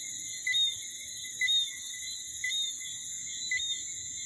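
Night-time insect chorus: a steady high-pitched drone with a short chirp repeating about once a second.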